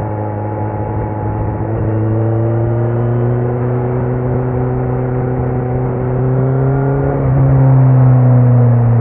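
Kawasaki Z900's inline-four engine running through a Leo Vince muffler with no dB killer, holding a steady drone as the revs climb slowly under light throttle. The note shifts about seven seconds in and then gets somewhat louder.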